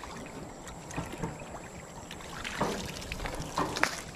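Pond water splashing and sloshing in a few short, irregular splashes, the loudest about two and a half and three and a half seconds in, as duckweed is scooped from the surface or ducks feed in it.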